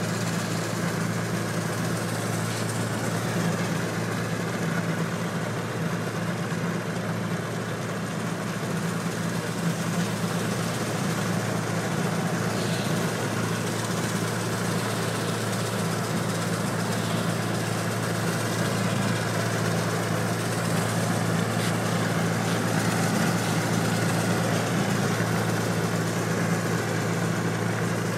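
1.5-inch-scale rotary snow blower and the model locomotive pushing it, running steadily through snow with an even, unbroken mechanical drone while the rotor throws snow.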